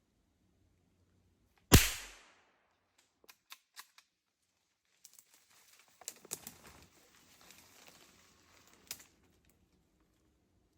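A single gunshot just under two seconds in, sharp with a short fading tail. A few light clicks follow, then a stretch of soft rustling and small knocks.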